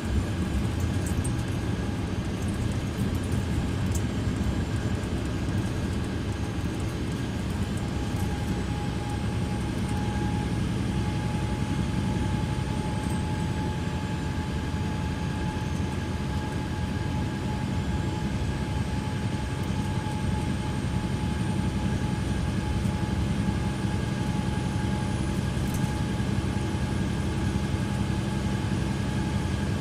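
Mercedes-Benz Citaro bus's OM 936 six-cylinder turbo diesel idling steadily at a standstill, with a steady high whine running alongside the engine note.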